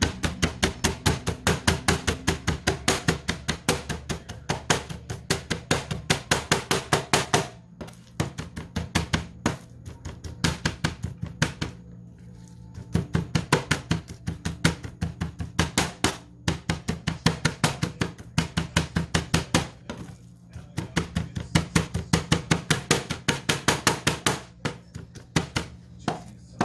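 Cleaver chopping rapidly and evenly on a cutting board, about four to five strokes a second, mincing fish for a prahok dip. The runs of chopping break off briefly several times.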